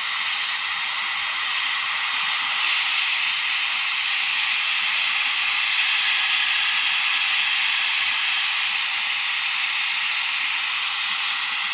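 Shop vacuum running at a hose nozzle held beside the work, a steady airy hiss, with a few faint clicks in the second half.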